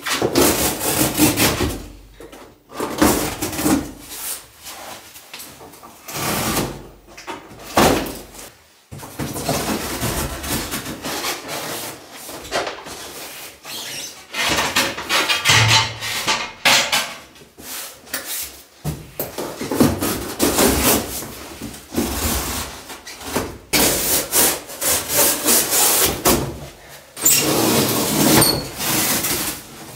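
Large cardboard water-heater carton being worked open by hand: repeated ripping, scraping and rubbing of cardboard in irregular bursts.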